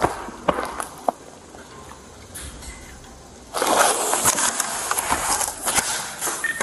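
A few sharp clicks, then from about halfway through a loud scraping rustle of clothing rubbing against a body-worn police camera.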